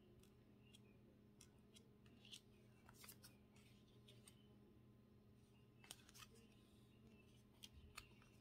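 Faint, irregular little clicks and slides of Pokémon trading cards being flipped through by hand, about a dozen in all, over a low steady hum.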